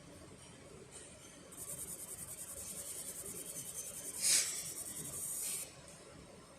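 Fiber laser marking machine at work: a high, rapidly pulsing hiss starts about a second and a half in and stops sharply about four seconds later, with a brief louder burst near its middle.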